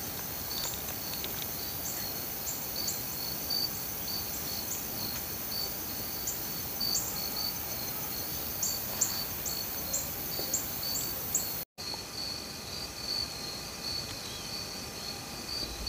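Insects chirping and trilling: a steady high trill with irregular, higher chirps over it.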